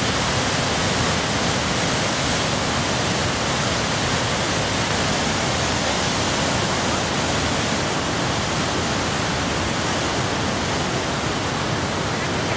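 A river in flood rushing past: fast, muddy water churning and carrying sediment, a steady, even wash of noise with no breaks.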